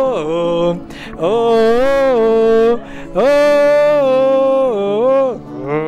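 Music: a voice singing three long held notes, each sliding up into the note and falling away at its end, over a steady backing.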